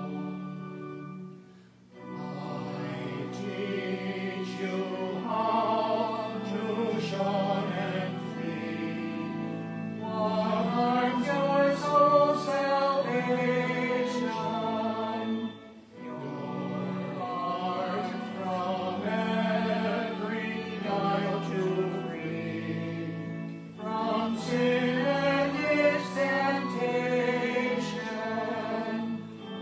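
A choir singing a hymn in sustained phrases, with short breaths between phrases about two seconds in, at about sixteen seconds and near twenty-four seconds.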